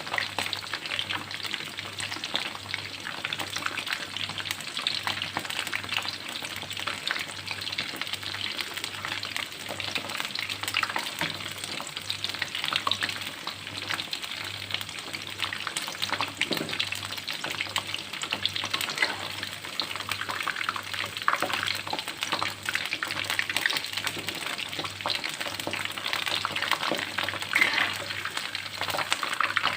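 Flour-battered shrimp deep-frying in hot oil: a steady, dense crackle and sizzle.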